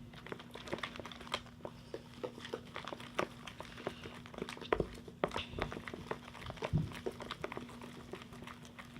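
Slime being stirred and squished in a container, making irregular small sticky clicks and crackles, with a faint steady hum underneath.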